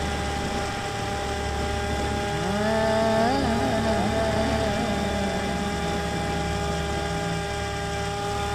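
Bixler 3 RC plane's electric motor and propeller running steadily in flight, heard from the onboard camera, with wind rumble on the microphone. About two and a half seconds in, the motor's whine rises in pitch as it speeds up, then holds at the higher note.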